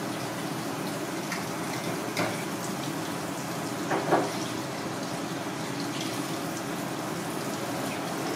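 Steady rushing background noise, like water running from a tap, with a few light clicks. The loudest is a short clatter about four seconds in.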